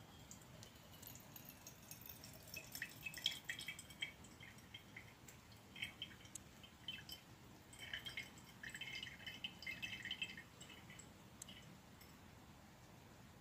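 Faint dripping and trickling of the aqueous layer draining through a separatory funnel's stopcock into a beaker, in irregular runs of small drips and splashes that come and go over about ten seconds.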